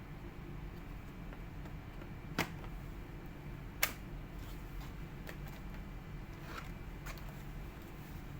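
Small sharp clicks and light taps of laptop parts being handled, two of them loud, about a second and a half apart, with several fainter ones after, over a steady low hum.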